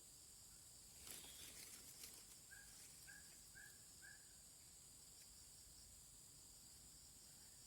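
Faint outdoor ambience: a steady high-pitched drone of insects, with a bird giving four quick chirps about two and a half seconds in, and a brief rustle just after a second in.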